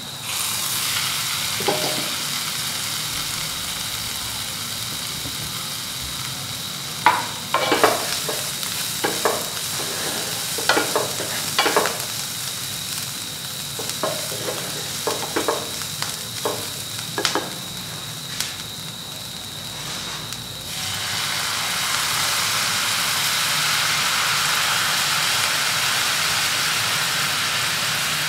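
Chopped onions sizzling in a nonstick pan, with a wooden spatula scraping and knocking against the pan between about seven and eighteen seconds in. About twenty-one seconds in, a milky liquid goes in, and the sizzle turns suddenly louder and becomes a steady bubbling.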